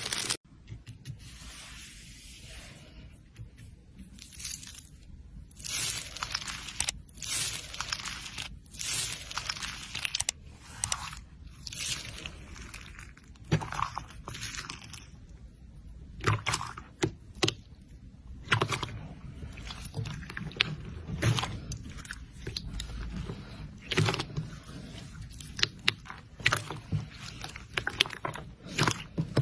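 Slime being squeezed and worked by hand, with irregular crackling and popping.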